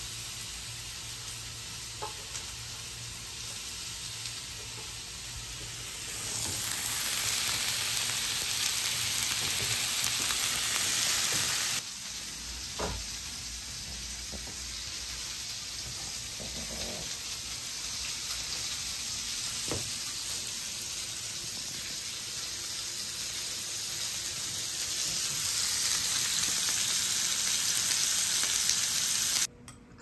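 Steady sizzling hiss of food frying in a pan, louder for several seconds twice, with a few faint knocks.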